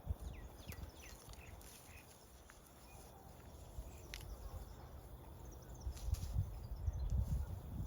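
Outdoor pasture ambience: small birds chirping faintly now and then, over low rumbling noise that swells louder from about six seconds in. No mooing in this stretch.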